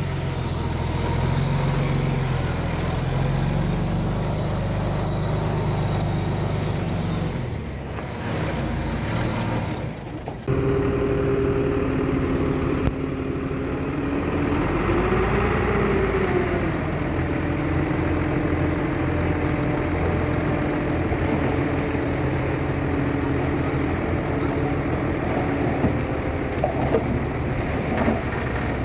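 Diesel engines of heavy earthmoving machinery running, with a high whine over the engine note at first. The sound changes abruptly about ten seconds in, and a few seconds later the engine note rises and falls briefly.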